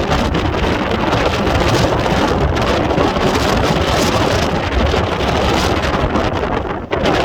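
Strong wind buffeting the microphone: loud, continuous rumbling noise that drops out briefly just before the end.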